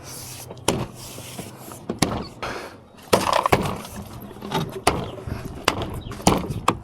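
Irregular sharp plastic clicks and knocks, about a dozen, as car door trim pieces are handled and fitted back on.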